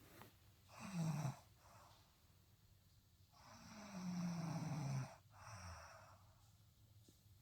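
Snoring in long drawn breaths: a short snore about a second in, then a longer one of nearly two seconds from about three seconds in, followed by a weaker one. Each is a low drone with a breathy hiss.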